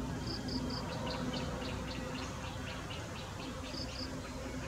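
Insect chirping: a run of short high-pitched chirps, about four a second, with a few longer clear notes near the start and again near the end, over a low steady hum.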